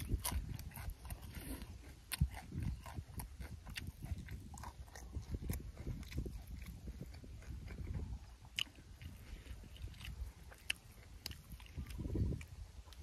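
A person chewing and biting food close to the microphone, eating fresh greens and boiled beef tripe, with many small sharp mouth clicks.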